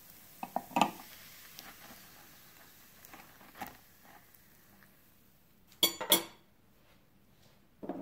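A metal table knife clicking and scraping against the non-stick plate of a heart-shaped electric waffle iron as a cooked waffle is pried loose and lifted out. About six seconds in come two loud, sharp clinks in quick succession, with another shortly before the end.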